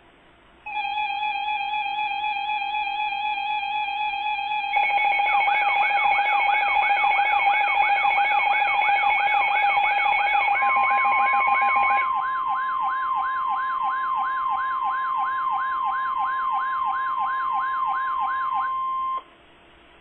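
Layered electronic emergency alert tones. A steady tone starts about a second in. A wavering siren-like tone, rising and falling about twice a second, joins near five seconds. A second steady tone comes in near eleven seconds as the first drops out, and all the tones cut off abruptly near nineteen seconds.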